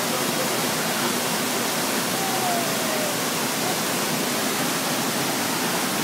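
Steady rush of a waterfall and the shallow, rocky stream below it, a constant even roar of water.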